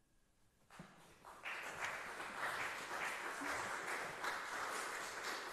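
Audience applauding, starting with a few scattered claps and swelling into full, steady applause about a second and a half in.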